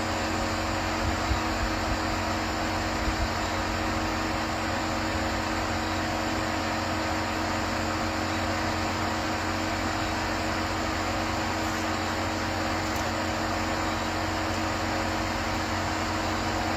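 Steady mechanical hum, like a fan or blower running, with a few low steady tones under an even hiss and no change in level.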